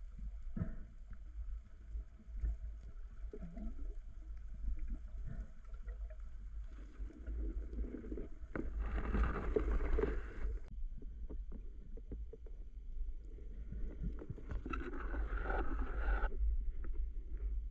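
Water moving around a swimming spearfisherman's camera, heard muffled as from in the water. There is a steady low rumble with scattered small knocks, and two longer swells of rushing water noise, one about seven seconds in and another about fifteen seconds in.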